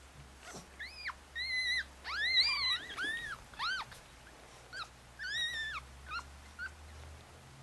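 Four-day-old Chihuahua puppies squeaking and crying: about a dozen short, high-pitched squeals that each rise and fall, in two clusters, the loudest about two and a half seconds in.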